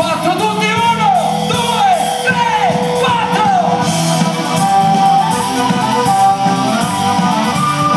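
Live band playing loudly through a PA, heard from within the audience, with voices singing and shouting along. The first half carries a run of repeated short falling notes, and from about halfway a steadier melody takes over.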